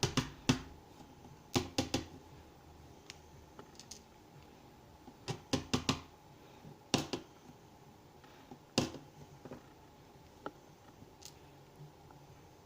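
Small metal clicks and taps in short clusters of two to four, with pauses between: the parts of a gutted dimple lock being handled.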